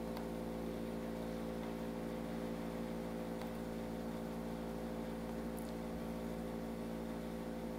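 A steady background hum of several low tones with a faint even hiss.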